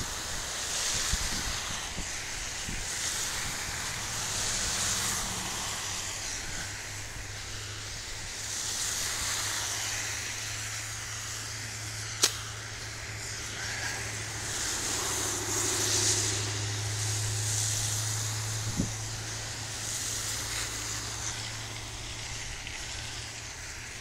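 Snowstorm wind rushing against a phone microphone in uneven gusts, over a steady low hum. One sharp click about halfway through.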